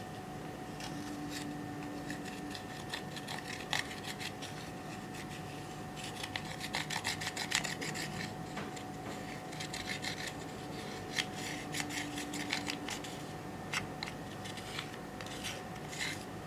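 Irregular scraping and rubbing with crackly clicks as eyeshadow and slime are worked by hand, busiest in two spells through the middle.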